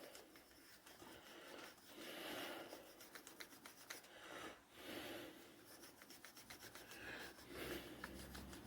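Faint, irregular rubbing strokes as an old hand brace is rubbed down by hand after its paint has been heat-gun stripped. Each stroke is a soft scrape, with light clicks and taps in between.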